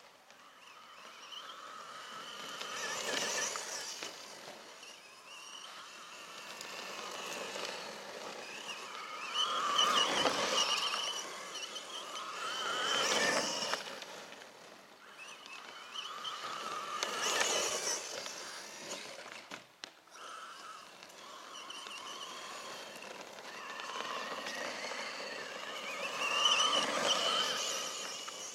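Brushless electric motor and drivetrain of a 1/10-scale short course RC truck whining, with its tyres running over grass. The sound rises and falls several times as the truck speeds up and slows, loudest about ten, thirteen and seventeen seconds in and again near the end.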